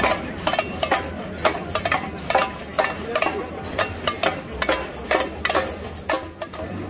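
Irregular metallic clanks, about two or three a second, each with a short ring, over a steady low rumble.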